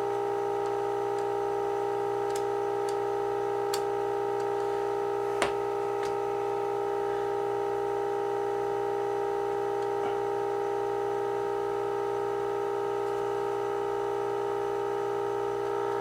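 Steady 400 Hz test tone, rich in overtones, from an AA5 tube radio's speaker as it receives a 400 Hz modulated signal during IF transformer alignment. There are a few light clicks, the sharpest about five and a half seconds in.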